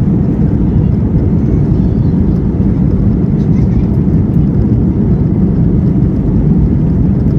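Steady low rumble inside the cabin of an Airbus A320 around landing: engine and airframe noise.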